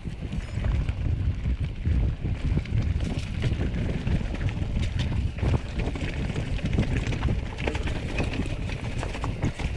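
Mountain bike riding down a rough trail of stones and dry leaves, with tyres crunching over the ground and the bike rattling and knocking over bumps. Wind buffets the microphone throughout.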